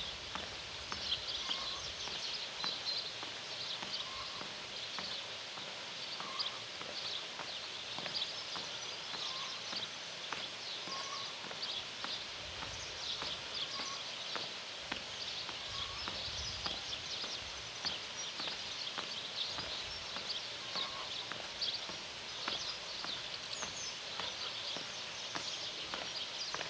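Outdoor ambience of dense, high chirping and clicking, with a short lower note recurring every second or two.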